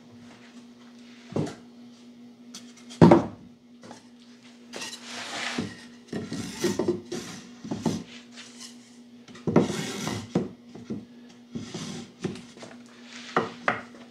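Wooden frame assembly jigs handled and stacked on a workbench: hollow knocks of wood on wood, the loudest about three seconds in, and several scraping, sliding rubs. A steady low hum runs underneath.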